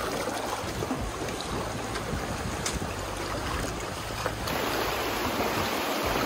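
River water rushing and splashing steadily around a bamboo raft drifting down a shallow, fast-flowing stream. The sound gets slightly louder a little past halfway, as the view switches to another shot.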